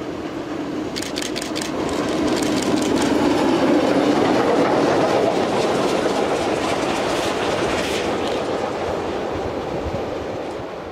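Steam locomotive CFL 5519 running light engine and passing at speed, wheels rolling on the rails. A quick run of sharp clicks over rail joints comes about a second in. The noise is loudest around four seconds in, then fades as the locomotive moves away.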